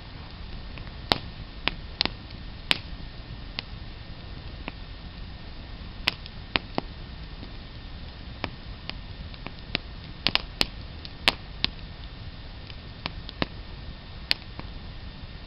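Wood campfire crackling: irregular sharp pops and snaps, some loud and some faint, over a steady low hiss.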